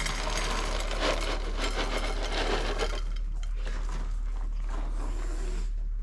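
Dry cat kibble rattling as it is poured from a plastic container into a metal bowl and two cats eat from it, a dense crackle that thins out about halfway through. A steady low hum runs underneath.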